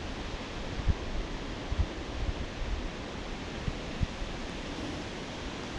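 Steady rushing noise of flowing creek water, with a few brief low thumps on the microphone.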